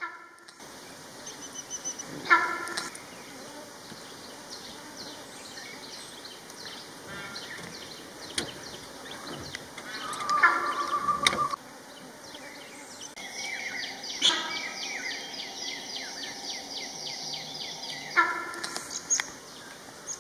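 Forest ambience with birds calling and chirping: a few louder calls stand out about two seconds in, a longer one around the middle and another near the end, with a quick run of chirps in the second half.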